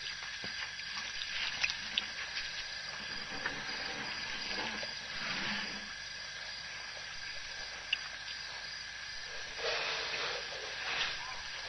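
Steady hiss with a faint high whine from a waterhole webcam's microphone, broken by a few soft clicks and two short noisy swells, about halfway and near the end.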